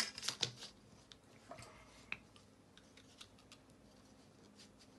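A clear plastic ruler clacks down onto a cardboard cutting board, followed by faint, scattered small taps and clicks as the ruler and a craft knife are lined up on a strip of paper.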